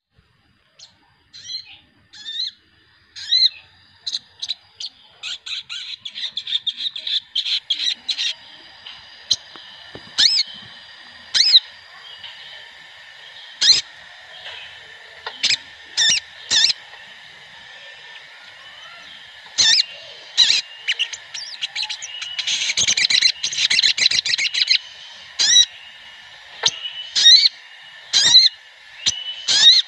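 Brown-throated sunbirds (sogon) calling in a group: many short, sharp, high chirps and quick trills, with dense runs of rapid chirping in two stretches, over a faint steady high whistle.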